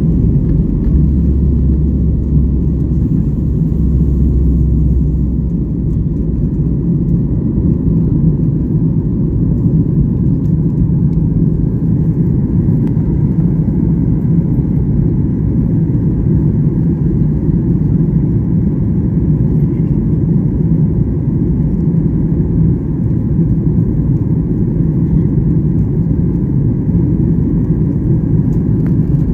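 Steady low rumble of an airliner's engines and airflow heard from inside the passenger cabin, with a deeper hum over it for the first few seconds.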